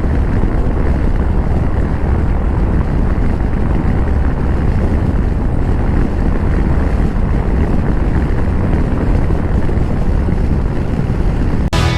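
Steady riding noise from a Royal Enfield Meteor 350 motorcycle on the move: wind rushing over the microphone, with the bike's single-cylinder engine and road rumble underneath.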